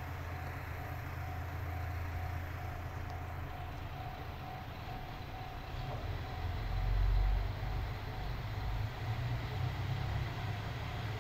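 Single-car diesel railcar pulling out of the station, its engine rumbling low and growing louder to a peak about seven seconds in as it accelerates away.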